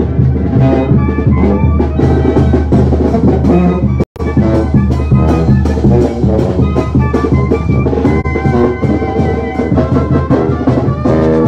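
Mexican street brass band playing while marching, with trombones, sousaphone and clarinet over drums in a lively rhythm. The sound cuts out for an instant about four seconds in.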